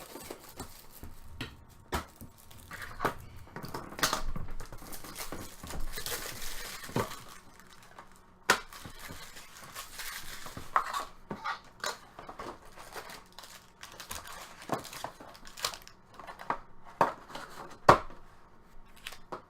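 Trading-card packs being torn open and crinkled, with the cards handled: irregular crinkling and tearing between sharp clicks and taps.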